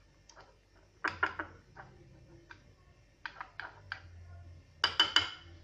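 A teaspoon clinking against a small ceramic dish while stirring yeast and sugar into warm water. The clinks are light and irregular, with the loudest three coming close together near the end.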